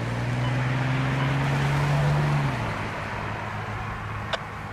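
A motor vehicle's low engine hum that rises slightly in pitch, over steady wind and traffic noise. The hum drops away about two and a half seconds in, and a brief click comes near the end.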